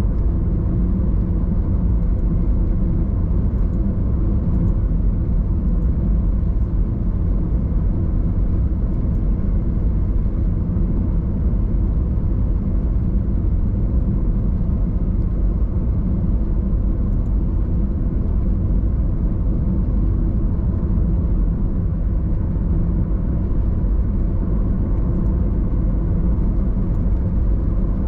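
Steady low rumble of a car on the move: engine and tyre noise on the road.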